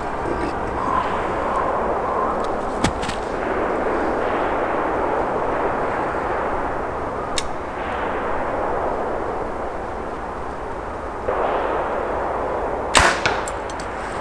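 A compound bow shot near the end: a sharp crack on release followed by a quick rattle of clicks, over a steady rushing background noise. A couple of faint single clicks come earlier while the bow is held at full draw.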